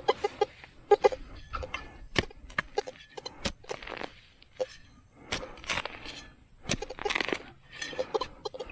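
Short chirping tones from a Teknetics T2 metal detector, mixed with sharp knocks and scraping as the ground is dug for a target.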